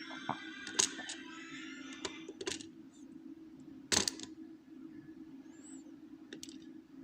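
Small metal clicks and clinks from lock cylinder parts and tools being handled while the lock is taken apart, with a few sharp taps, the loudest about a second in and about four seconds in, over a steady low hum.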